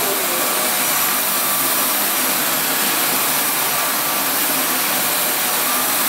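Narwal S10 Pro cordless wet-dry vacuum mop running steadily in its strong (maximum suction and water) mode as it is pushed over a hard floor: an even, loud rush of motor and suction noise.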